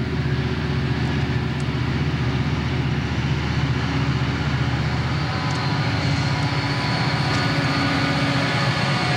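Several Southern Pacific diesel locomotives running hard under load, their engines a steady low drone. About halfway through, a higher whine joins as the units pass close by.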